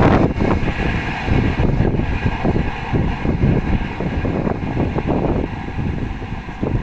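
Passenger train running past close by: a loud, steady rumble of coaches and wheels on the rails, with wind buffeting the microphone. The locomotive's shrill horn fades out in the first half second.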